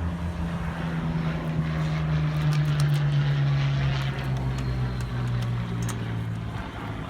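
Rolls-Royce Merlin V12 engine of a WWII piston fighter flying past. Its steady note swells to a peak about three seconds in and drops in pitch as the aircraft goes by.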